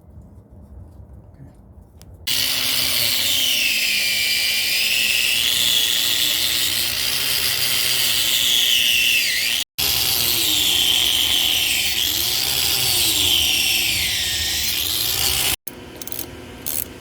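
Cordless power drill running under load, its whine rising and falling in pitch as the trigger is worked, with two abrupt breaks. A few short clicks follow near the end.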